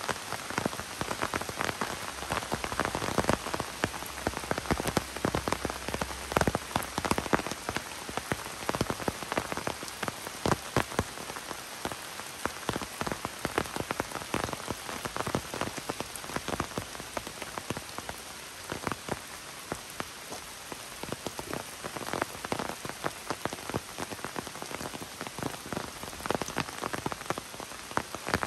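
Steady rain falling on woodland foliage, with many sharp individual drops landing close by.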